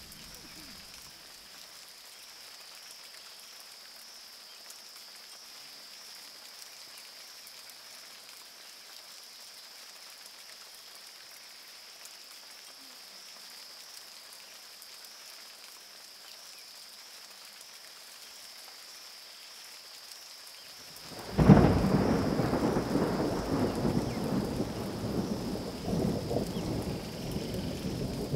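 Thunderstorm in the rainforest: faint steady rain at first, then about 21 seconds in a sudden loud thunderclap that rolls on as a long, deep rumble.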